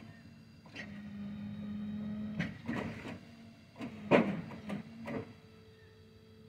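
Shed-moving equipment at work: a motor runs with a steady hum while several knocks and clunks sound, the sharpest about four seconds in. The hum cuts off about five seconds in.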